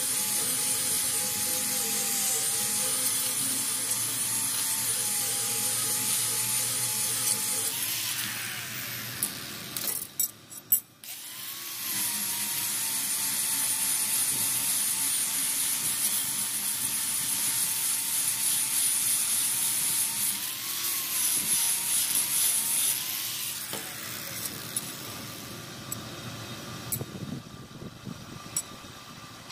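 Electric grinder running against the steel of an old bearing, its motor pitch wavering. It winds down about eight seconds in, starts up again after a short pause with a few clicks, and winds down once more about two-thirds of the way through.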